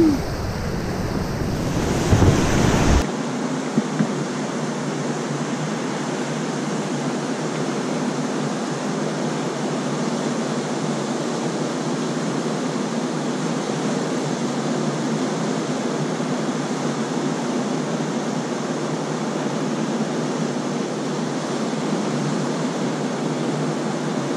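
Whitewater churning loudly around an open canoe's bow in a rapid. After a sudden cut about three seconds in, the steady, even rush of a river rapid is heard from the bank.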